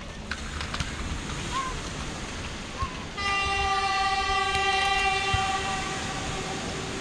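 Locomotive horn sounding one long, steady blast that starts abruptly about three seconds in and fades after about three seconds.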